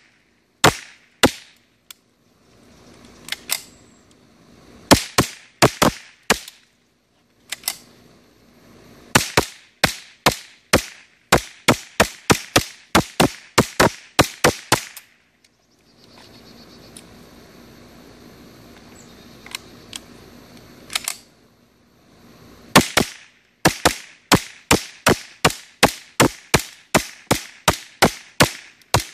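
Ruger 10/22 semi-automatic rifle firing Remington subsonic .22 LR rounds: sharp shots, first a few spaced singles, then quick strings of about two shots a second, with a pause of several seconds in the middle.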